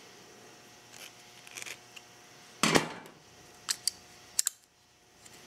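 Metal clicks and knocks from a screwdriver and an aluminium motorcycle carburetor body being handled during reassembly: a louder knock a little before the middle, then a few short sharp clicks.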